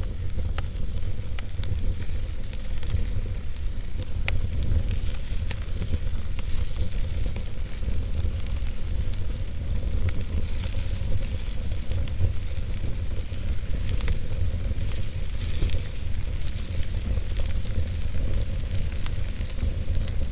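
Fire burning in a fireplace: frequent small crackles and pops over a steady hiss and a low rumble.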